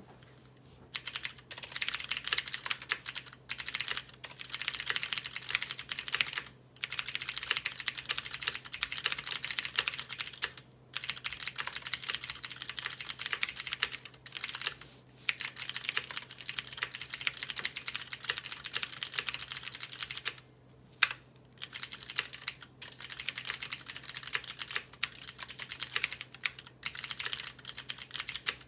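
Fast, continuous typing on a Cherry MX Board 3.0S mechanical keyboard with clicky Cherry MX Blue switches, a dense run of sharp key clicks broken by a handful of short pauses.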